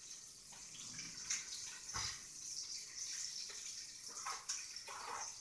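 Faint handling sounds of fingers twisting the stripped ends of thin insulated hookup wires: soft rustles and a few small clicks, the clearest about two seconds in, over a steady high hiss.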